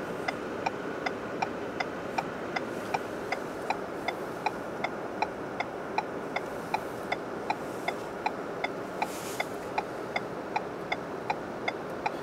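A car's indicator ticking about three times a second inside the cabin, evenly and without a break, over the steady hum of the car.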